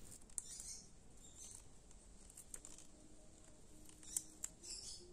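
Faint scraping of a blunt wooden colored pencil being twisted in a small handheld sharpener, with a few light clicks.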